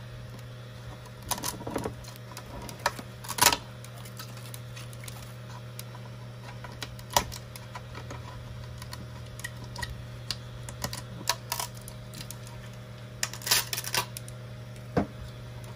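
Scattered sharp clicks and crackles of PLA plastic as the support raft is peeled and snapped off a large 3D print, with a denser cluster near the end, over a steady low hum.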